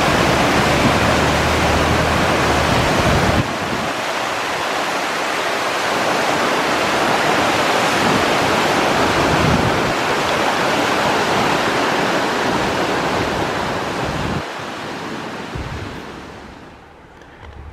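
Steady rushing of a waterfall and the rocky mountain stream below it, loud and even, dropping a step a few seconds in and again near the end before fading out.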